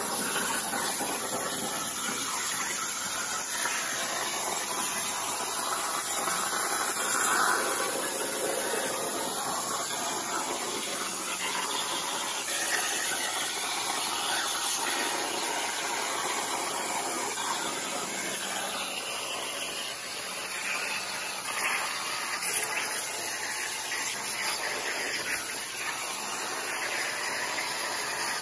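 Hypertherm 65XP plasma torch on a CNC table cutting sheet steel: the arc gives a steady, loud hiss with a high, thin edge to it.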